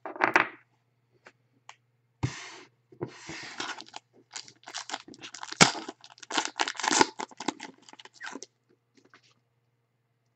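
Foil wrapper of a trading card pack being torn open and crinkled by hand: a run of crackly tearing and rustling from about two seconds in, stopping a couple of seconds before the end.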